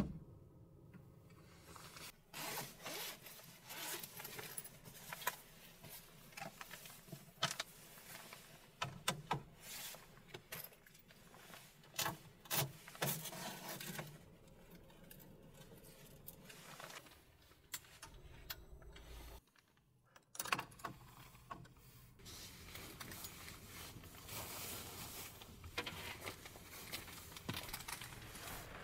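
Scattered small clicks, taps and scrapes with rustling of a nylon jacket as gear is handled on a pegboard and quilted window covers are fitted inside a small van.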